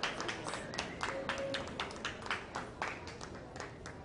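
Scattered hand clapping from a ringside audience: many irregular, separate claps a second over a low crowd murmur.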